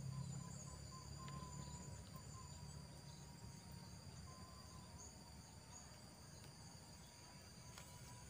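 Faint, steady high-pitched trilling of insects, a constant drone with no breaks, over a low background hum.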